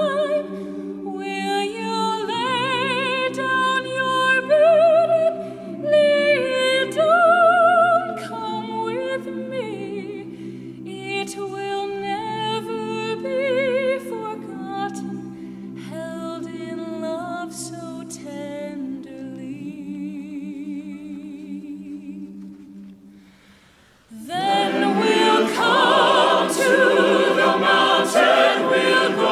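A high solo voice sings a slow line with vibrato over a held low chord, dying away about 23 seconds in; after a brief hush the full choir and chamber ensemble come in loudly.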